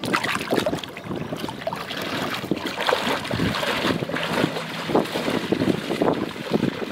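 Water splashing and sloshing in irregular strokes as a person wades through knee-deep river water.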